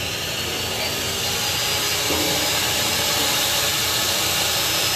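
A loud, steady hiss of pressurised gas escaping.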